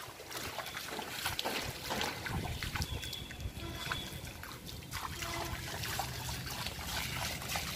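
Bare feet splashing and sloshing through shallow rainwater on concrete, with irregular small splashes and water trickling.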